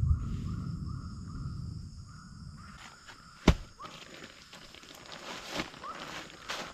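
Handling and rustling of a dark fabric bag being spread out on leaf litter, with a heavy rumble of handling at the start and one sharp click about three and a half seconds in. Behind it an animal calls in a steady series of short chirps, about three a second.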